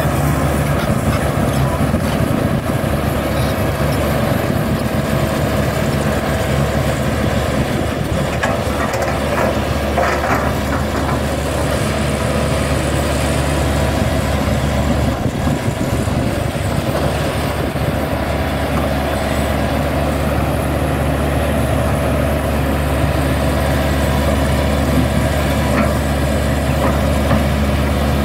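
Hitachi crawler excavator's diesel engine running steadily as it digs a slope, with a few brief knocks from the digging about a third of the way in and again near the end.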